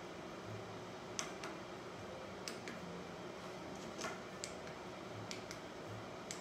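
Quiet room tone with a faint steady hum and several short, soft clicks, some in close pairs.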